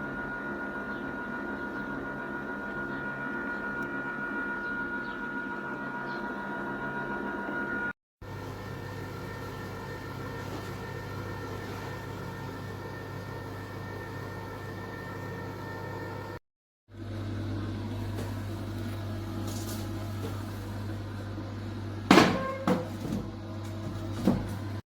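H.Koenig HF340 compressor ice cream maker running with a steady mechanical hum and whirring motor tones. The sound drops out briefly twice. A few sharp knocks and clatters come near the end.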